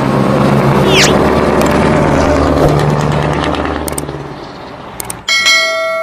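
Heavy truck pulling a tanker trailer driving by, its engine and tyre noise loud at first and then fading. About five seconds in it cuts off and a bell-like chime rings with several steady tones.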